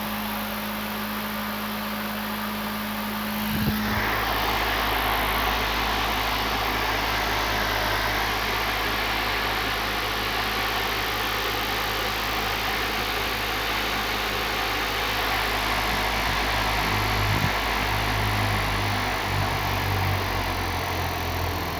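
The motor of a homemade drone or helicopter, spinning its double rotor blades with a steady hum and a rush of air. About four seconds in it speeds up and gets noticeably louder, and its pitch shifts again near the end.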